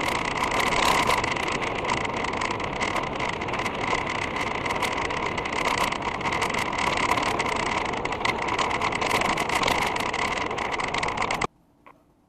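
Steady rushing of wind and tyre noise from a mountain bike ridden on a gravel road, heard from a camera mounted on the bike. It cuts off abruptly near the end, leaving near silence with one faint click.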